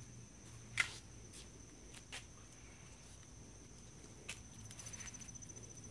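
Faint, steady high-pitched insect trill, which turns into a fast pulsing near the end, with a few short sharp clicks, the loudest about a second in.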